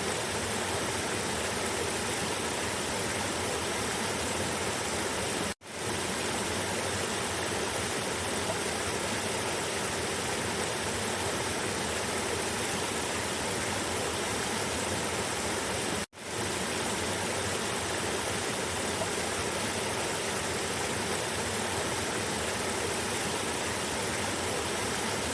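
Cascading river water rushing steadily. It cuts out suddenly twice, for a fraction of a second each time, and fades back in.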